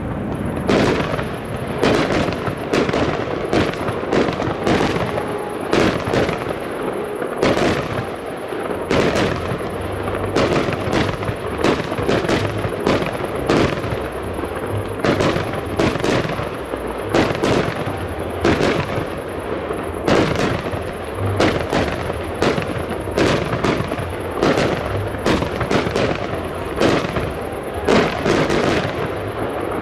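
Fireworks display: aerial shells bursting in a rapid, unbroken run of bangs, one or two a second, over a continuous crackle.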